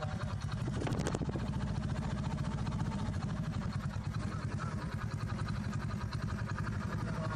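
Small motor-driven roller and gear-chain mechanism running with a fast, steady rattling whir, with a sharp click about a second in.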